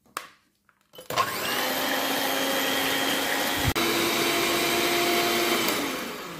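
Electric hand mixer whirring as its beaters whip egg whites in a ceramic mug, starting about a second in. A click and a step up in pitch come a little past halfway, and the sound fades out near the end.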